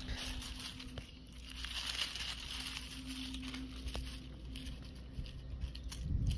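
Dry fallen leaves rustling and crinkling as a hand works among them close to the ground, with small scattered clicks of handling.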